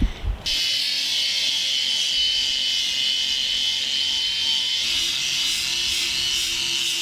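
Small power tool running steadily with a thin high whine, sanding metal chainplates with coarse 80-grit paper. It starts abruptly about half a second in.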